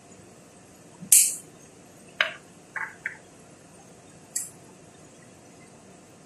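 A few brief sharp sounds as seasoning goes from a small shaker into a pot on the stove. The first, about a second in, is a short hiss and the loudest; three quicker ones follow over the next two seconds and one more comes near the middle.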